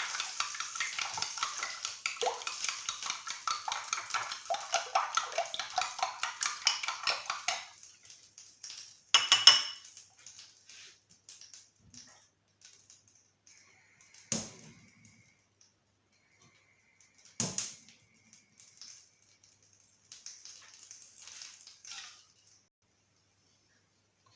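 Eggs beaten with milk in a bowl for an omelette, a fast run of clicking strokes for about seven and a half seconds. After that come a few separate knocks and clinks of kitchenware.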